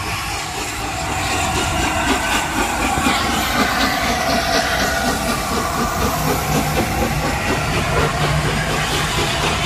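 LNER A4 Pacific steam locomotive 60007 Sir Nigel Gresley, a three-cylinder engine, passing close by with a loud hiss of steam and a fast rhythmic beat from its exhaust and running gear. A low steady hum comes in about six seconds in as the engine draws level.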